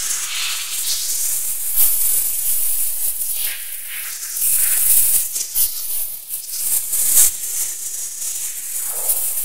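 Electroacoustic tape music: a high-pitched hissing noise texture that swells and fades in waves, peppered with sharp crackles and clicks, with almost no bass.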